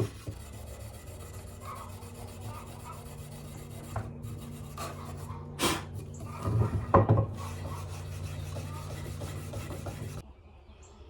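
Old steel wool scrubbed rapidly back and forth over the wooden body of an antique jack plane, rubbing off old paint and grime: a steady scratchy rubbing, with a few louder knocks of the plane being handled near the middle. The scrubbing stops about ten seconds in.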